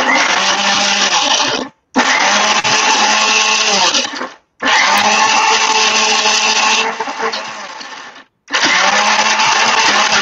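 Electric blender grinding a thick Nyonya spice paste of soaked dried chillies and sliced lemongrass in oil, with no water added. It runs in four pulses of about two to four seconds each, with short breaks between them.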